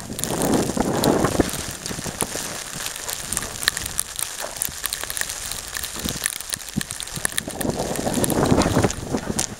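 Footsteps crunching in fresh snow, many small crisp crackles, with two louder rushing stretches, one just after the start and one near the end.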